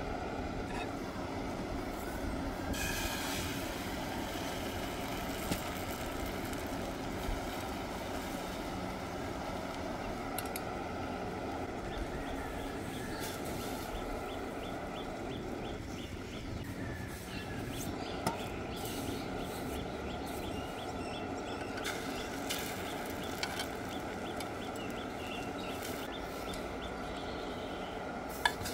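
Small gas canister camp stove burner running with a steady rush under a frying pan. A few sharp metal clinks of utensils on the pan come through, the loudest near the end.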